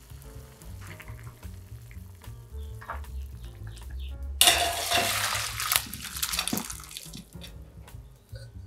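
Boiled broccoli and its hot water poured from a stainless steel pot into a wire-mesh strainer, a sudden loud rush of splashing water starting about halfway through and lasting a couple of seconds. Before it, light knocks of a wooden spoon stirring in the pot.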